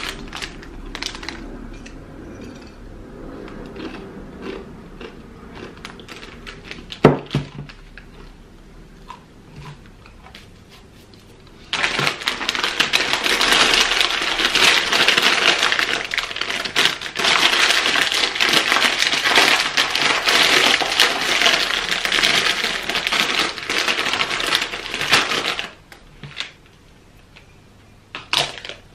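Loud crinkling of a plastic bag of plantain chips being handled and opened for about fourteen seconds, starting about twelve seconds in. Before it come faint crunches and clicks with one sharp knock; near the end comes a short rattle of chips poured into a glass bowl.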